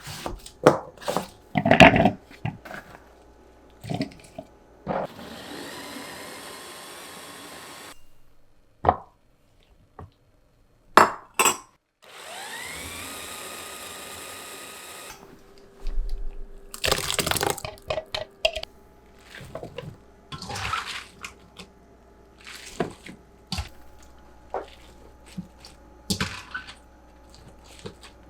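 Kitchen work: water running into a container twice for a few seconds, the second time rising in pitch as the vessel fills. Between and after come the knocks and clinks of dishes and utensils being handled.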